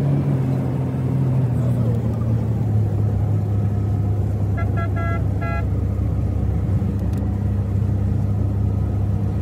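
Car driving on a wet road, heard from inside the cabin: a steady low engine and road hum. About five seconds in there is a quick run of short beeps, like a horn tapped several times.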